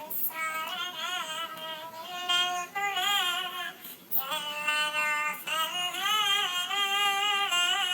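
High-pitched, cartoon-like singing voice for an animated cat, sung in several phrases with brief breaks, the pitch wavering on the held notes.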